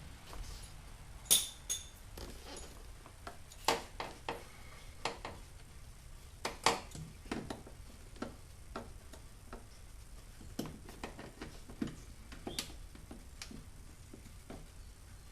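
Irregular clicks and light knocks of hand tools and fasteners as a car door panel is worked on, with two louder clicks, about a second in and near the middle.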